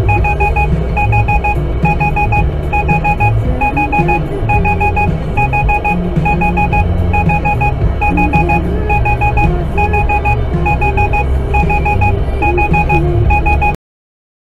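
An electronic warning beeper sounding rapid groups of four short beeps, repeating about once a second, over the steady low rumble of the vehicle's engine and road noise. It cuts off abruptly near the end.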